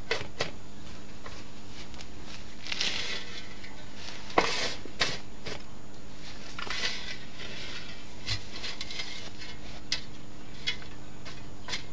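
Metal shovel scooping soil and tipping it into a small hole in a lawn: several short scrapes and rustles of falling soil, with a sharp knock about four and a half seconds in.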